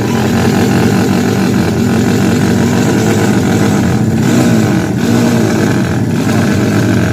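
Loud racing motorcycle engine running steadily, its pitch wavering a little without a full rev.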